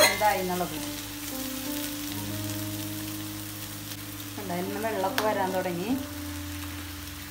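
Chicken pieces sizzling and bubbling in their juices in a frying pan while being stirred with a wooden spatula, with a sharp click about five seconds in.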